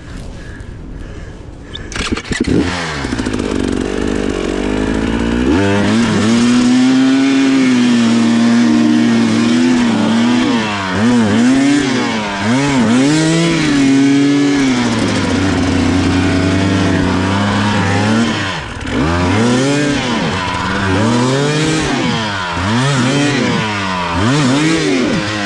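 Two-stroke GasGas EC300 enduro bike engine revving hard and unevenly while its rider works up a trail climb, the throttle opened and eased again and again so the pitch keeps rising and dipping. The engine picks up about two seconds in and is running at full effort from about five seconds in.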